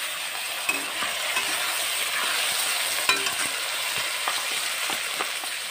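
Chopped tomatoes and onions frying in hot oil in a metal kadhai, a steady sizzle, with a flat metal spatula scraping and clinking against the pan now and then as it stirs them.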